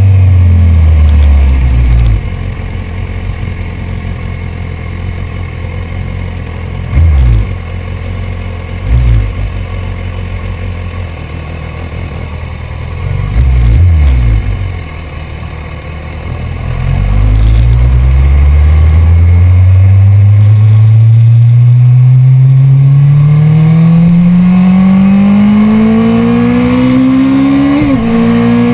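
BMW S1000RR's 999 cc inline-four engine. Revs fall over the first two seconds, then the engine runs low with three short throttle blips. From just past the middle, revs climb in one long, steady rise under acceleration, broken by a brief dip near the end.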